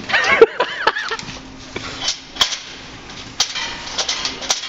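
Skis being handled in a metal ski rack: a wavering, honk-like squeal in the first second, then a few sharp clacks of ski against metal.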